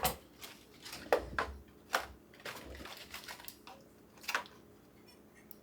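Mylar food pouches being handled for heat sealing: a run of sharp crinkles and clicks of the foil bags, about seven over the first four seconds, then quieter.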